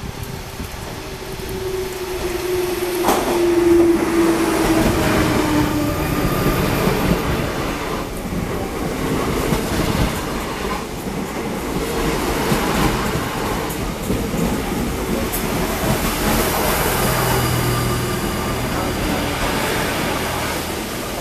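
Double-deck electric commuter train running along the platform close by, its wheels clattering over the rails. A falling whine sounds over the first few seconds, and a low hum comes in near the end as the locomotive goes past.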